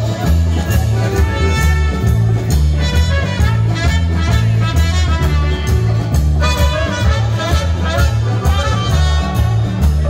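Live band playing upbeat dance music: drums keep a steady beat under a pulsing bass line and a melody line.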